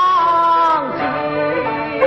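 Yue opera aria: a sung note held with a slight bend in pitch, ending just under a second in, while the opera's instrumental accompaniment plays on.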